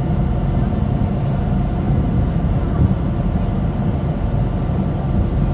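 Passenger ferry's engines droning steadily, heard from inside the passenger cabin while the ferry is under way.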